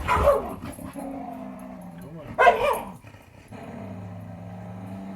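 Dog playing tug of war over a rope toy: two loud barks, one at the start and one about two and a half seconds in, then a steady low growl as it pulls.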